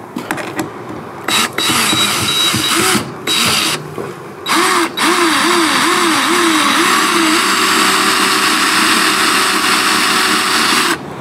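Cordless drill driving into a wooden mounting base: several short bursts, then one long run of about six seconds. Its motor pitch dips and recovers about five times under load, then holds steady near the end.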